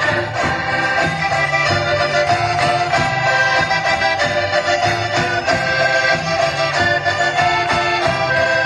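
Live folk dance music led by accordions, with held chords and a steady, even beat.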